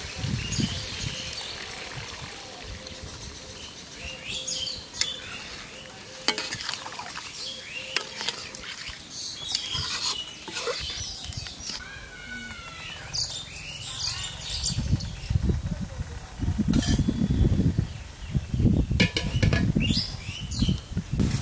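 Chicken being stir-fried in a pan: a spoon scraping and clinking against the pan over a sizzle, with short bird chirps now and then. The stirring gets louder and rougher in the last several seconds.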